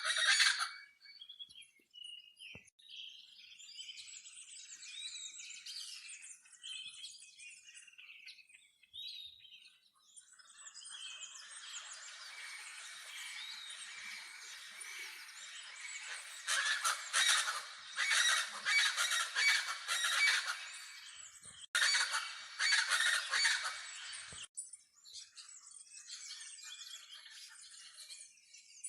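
A flock of chachalacas (araquãs) calling together: scattered calls at first, swelling into a loud, dense chorus past the middle, then thinning out near the end.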